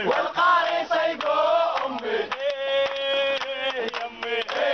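A crowd chanting a slogan in unison, with hand-clapping in time and some notes held long.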